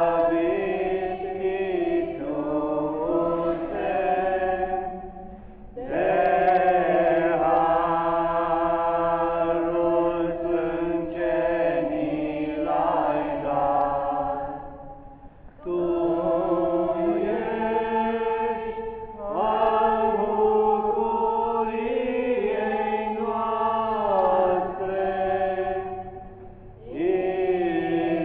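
Small group of young women singing a Romanian Orthodox hymn, unaccompanied. Long sung phrases with brief pauses for breath about five, fifteen and twenty-six seconds in.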